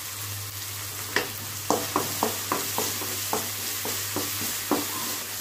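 Wooden spatula stirring onions and tomatoes frying in oil in a metal kadai, mixing in salt: a steady sizzle, and from about a second in a string of about ten knocks of the spatula against the pan, roughly three a second.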